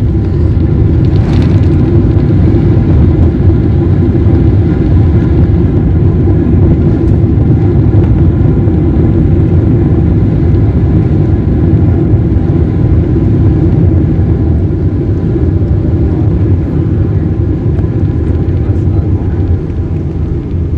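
Airliner cabin noise during the landing roll after touchdown: a loud, steady, low rumble of the engines and the wheels on the runway, easing slightly toward the end.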